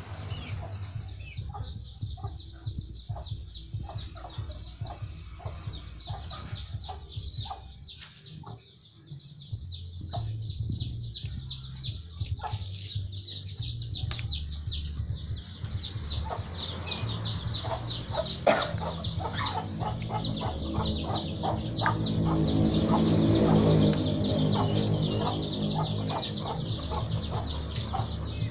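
Chickens clucking, with many quick repeated calls and a louder, longer call about three-quarters of the way through.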